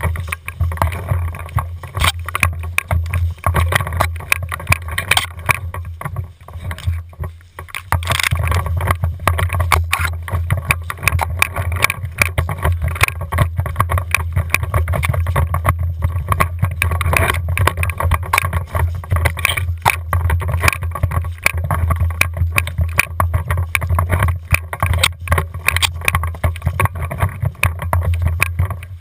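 Handling noise from a camera mounted on the barrel of a Tippmann A5 paintball marker while the player runs through grass: dense, irregular knocks and rustling over a steady low rumble.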